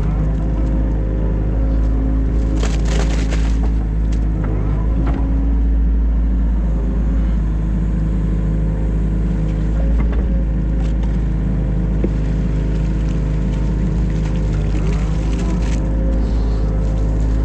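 New Holland Kobelco E50.2 mini excavator's diesel engine running steadily under load while digging, with a few short knocks and scrapes of the bucket working, the loudest about two and a half seconds in.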